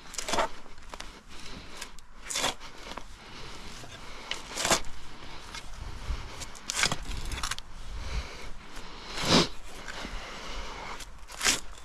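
Spade cutting into soil and roots and scraping out dirt, in strokes roughly every two seconds, six in all.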